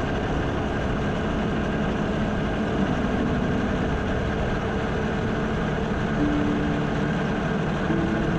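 Motorcycle engine running steadily while riding, under a steady rush of wind and road noise.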